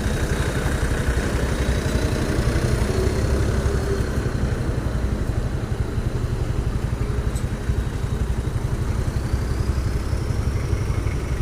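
Bus diesel engine idling steadily, a low rumble with a rapid even pulse; the telolet horn is not sounding.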